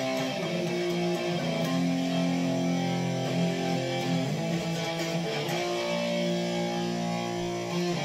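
Background music: a guitar-led track of held chords that change every second or so.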